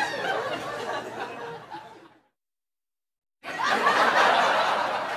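A group of voices chattering and laughing. The sound fades out about two seconds in, drops to dead silence for about a second, then comes back loud and dense.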